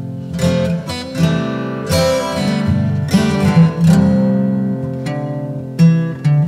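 Background music: acoustic guitar strummed and plucked in a steady rhythm.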